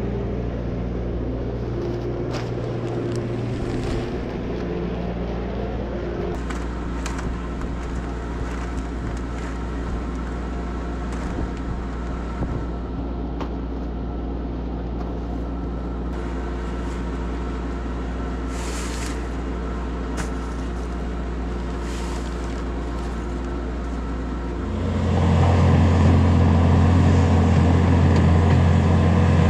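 Skid steer engine running at a steady speed, with a few faint clanks; about 25 seconds in it is throttled up and runs markedly louder.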